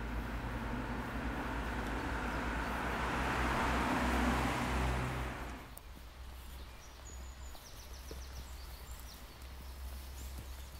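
Outdoor ambience: a rushing noise with a low rumble swells, peaks about four seconds in and cuts off abruptly near six seconds, leaving a quieter background with a few faint high chirps.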